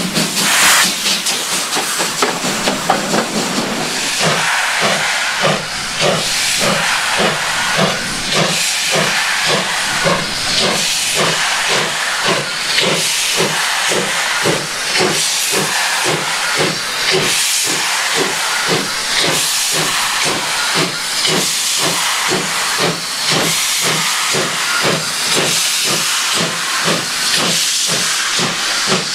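Ex-Deutsche Reichsbahn class 52 two-cylinder 2-10-0 steam locomotive (TCDD 56 548) hauling a freight train past. For the first few seconds there is a loud hiss of escaping steam. Then regular exhaust chuffs come in, about one and a half to two a second, over a steady steam hiss.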